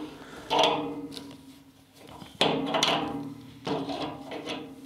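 Metal tools clanking against a radiator valve's brass nuts and copper pipe as an adjustable spanner and pump pliers undo the old valve and tail. Three sharp knocks, each ringing on and dying away, about half a second, two and a half seconds and nearly four seconds in.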